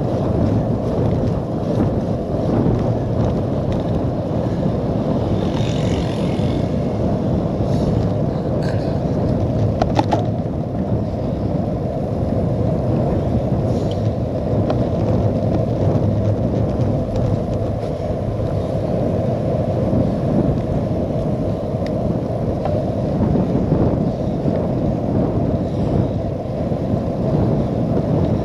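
Wind rushing over the microphone of a bicycle-mounted camera, with tyres rolling on wet tarmac, as a cyclocross bike rides at about 15 to 18 mph. The noise is steady and low, with a brief click about ten seconds in.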